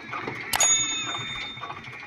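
A mouse click followed by a single bright bell ding that rings and fades over about a second: the notification-bell sound effect of a subscribe-button animation.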